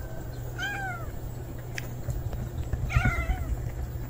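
A cat meowing twice: two short meows, each rising then falling in pitch, about two seconds apart.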